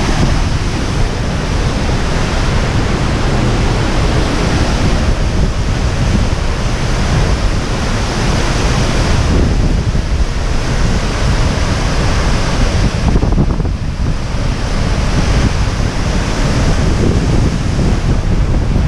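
Loud, steady roar of a large waterfall close by, with wind from the falls gusting against the microphone in slow swells.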